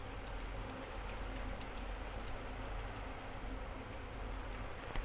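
Hot oil sizzling steadily as two breadcrumb-coated mutton keema cutlets deep-fry in a small kadai. A short click comes near the end.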